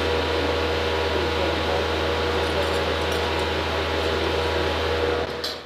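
Steady low mechanical hum of machinery or ventilation, with a faint constant tone, cutting off abruptly near the end.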